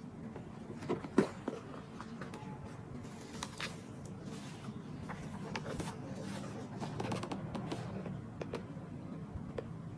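Handling noise from a crocodile-embossed calfskin handbag: soft leather rustling with scattered small clicks and taps. The loudest is a sharp click about a second in, as the flap is opened.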